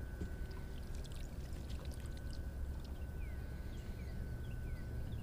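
Water sloshing and lapping against a boat hull over a low steady rumble, with a faint steady whine and light scattered clicks. In the second half comes a run of about six short falling chirps.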